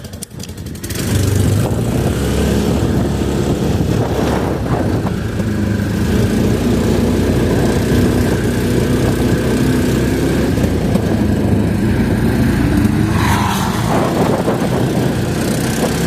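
ATV engine running under throttle as the quad climbs a steep hill, picking up about a second in and holding steady with small shifts in pitch as the throttle changes.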